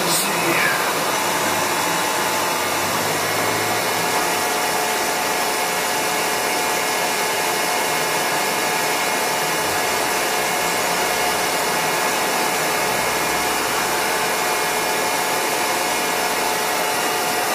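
Mori Seiki MV-653/50 vertical machining center running: a steady whirring hiss with several faint steady tones in it, with a brief click and a short falling squeak right at the start.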